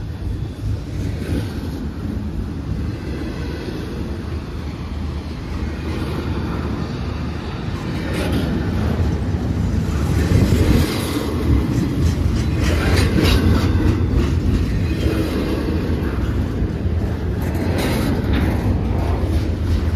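Train passing close by, a steady rumble of rolling rail cars with repeated wheel clicks, growing louder about halfway through.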